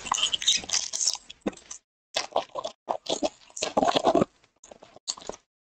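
Foil trading-card pack wrapper crinkling in irregular bursts as it is torn open by hand and pulled off the cards.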